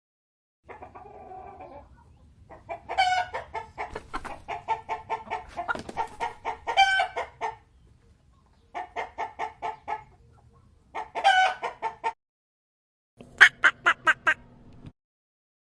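Chickens clucking in quick repeated calls, in four bouts broken by short silences.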